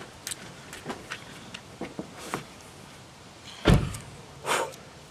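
Handling noise from a vinyl decal and its paper backing being worked against a windshield: scattered small clicks and rustles, a thump about three and a half seconds in, then a short rush of rustling.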